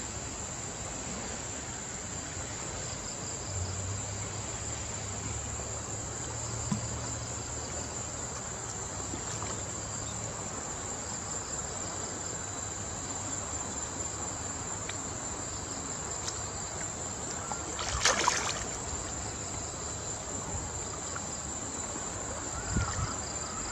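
Steady high-pitched drone of insects chirring in riverside vegetation, over a soft wash of moving river water. About three-quarters of the way through there is one short splash of water.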